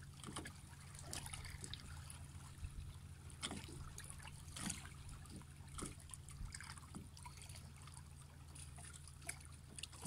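Quiet water lapping and trickling among shoreline rocks, with scattered short clicks and taps.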